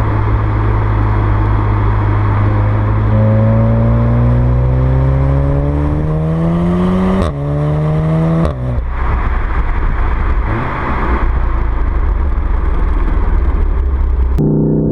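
VW Golf 7 R's 2.0-litre turbocharged four-cylinder (TSI) accelerating hard: the engine note holds steady, then climbs in pitch for about four seconds before dropping sharply as the DSG gearbox upshifts about seven seconds in, climbs again and drops with a second upshift a second or so later.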